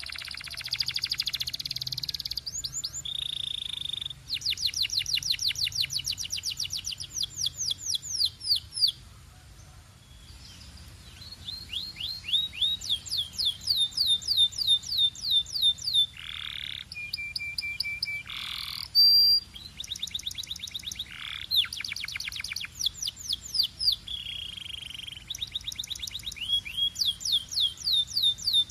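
A canary singing: fast trills of repeated rising notes, mixed with short held notes, with a brief lull about ten seconds in.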